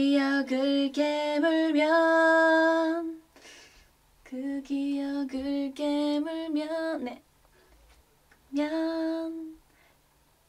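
A young woman singing a vocal take into a studio microphone, with no accompaniment heard: three phrases with held, steady notes, the first about three seconds long, separated by short pauses, the last one brief.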